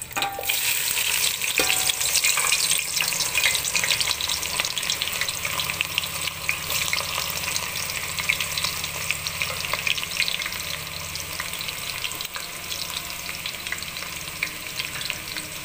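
Sliced onions dropped into hot cooking oil in a pot, sizzling and crackling densely. The sizzle is loudest just after they go in and eases gradually, with one knock about a second and a half in.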